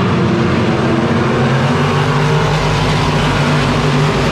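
A field of dirt-track stock cars running together around the oval, many engines blending into one steady, loud mix of engine noise.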